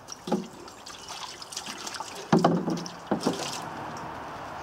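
Canal water poured from a watering can over a steel ammo box, trickling and splashing on the metal, with three short knocks, about a third of a second, two seconds and three seconds in.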